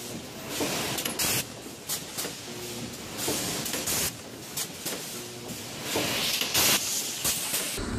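Automatic chain-link welding machine cycling: sharp hissing bursts with mechanical clicks, about one a second, as each link is welded.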